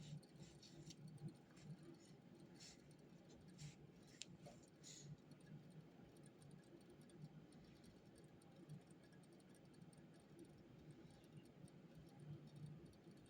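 Near silence over a low steady hum, with a few faint short scratches and clicks in the first five seconds, as of someone writing at a desk.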